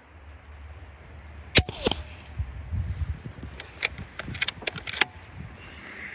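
A .25 calibre Hatsan FlashPup air rifle fires once, a sharp crack about one and a half seconds in. A couple of seconds later comes a quick run of small metallic clicks as the action is cycled to chamber the next pellet.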